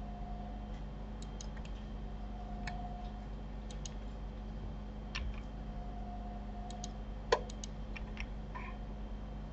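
Scattered clicks of a computer mouse and keyboard, with one louder click a little past seven seconds in, over a low steady hum.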